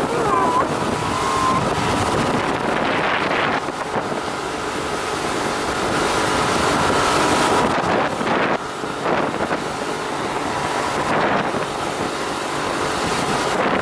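Sessa motorboat running at speed: a steady rush of engine and water noise, with wind buffeting the microphone.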